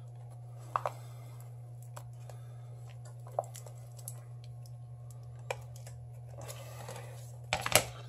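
Scattered light clicks and taps of a cracked Samsung Galaxy S7 Edge and a loose piece of its glass being handled, over a steady low hum. Near the end comes a quick cluster of louder knocks as the phone is set down on a wooden cutting board.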